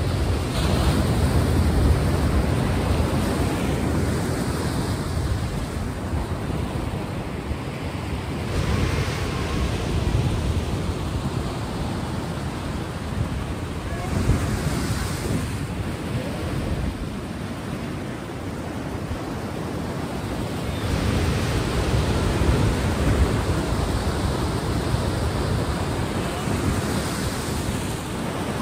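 Sea waves washing ashore, a steady rush that swells and falls back every few seconds.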